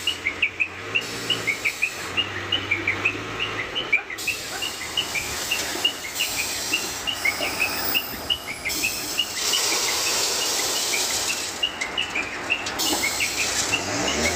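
Small birds chirping in quick, repeated high chirps, several a second, over steady background noise. A louder rushing hiss rises between about nine and twelve seconds in.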